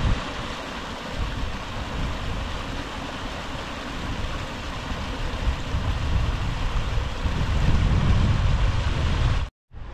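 Gusty wind buffeting the microphone, a fluctuating low rumble under a steady hiss, cut off abruptly near the end.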